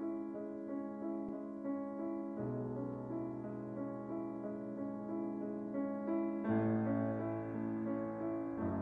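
Slow, gentle piano background music: held chords over a low bass note that changes about every four seconds.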